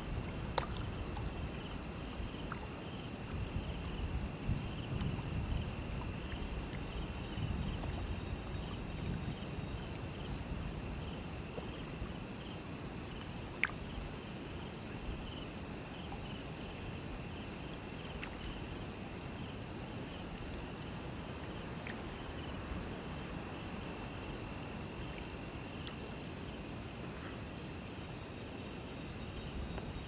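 Crickets chirping steadily at night: a continuous high trill with a rapidly pulsing chirp beneath it. Underneath is a low rumbling background that is stronger in the first ten seconds or so, and a single sharp click comes about 14 seconds in.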